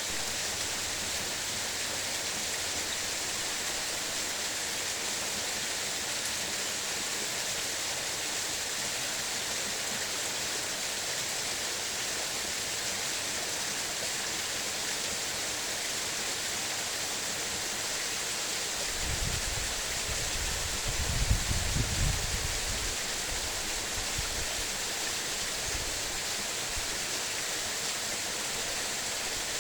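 Waterfall splashing: a steady rush of falling water. About two-thirds of the way through, a low rumble swells for a few seconds and then fades.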